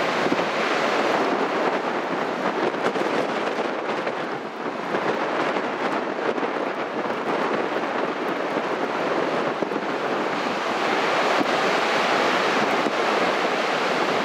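Heavy storm surf whipped up by a nor'easter, breaking and washing up the beach in a continuous rush, with strong wind buffeting the microphone.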